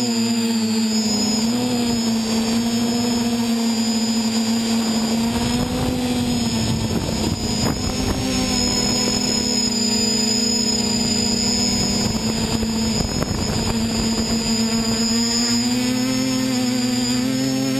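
VC-450 quadcopter's electric motors and propellers whining steadily, heard from the camera on its frame. The pitch drifts a little with throttle and rises near the end, and a rushing noise swells in the middle.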